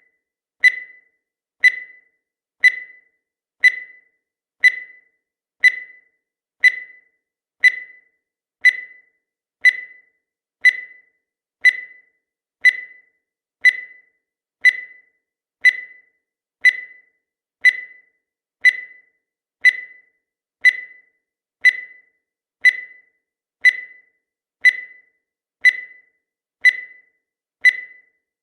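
Countdown timer sound effect: a short, high-pitched beep once every second in a steady, even rhythm, each beep dying away quickly.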